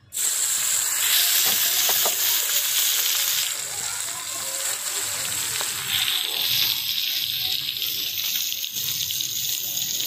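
Marinated fish pieces frying in hot oil in a small iron kadai: a loud, dense sizzle that starts suddenly as the fish drops into the oil and stays steady.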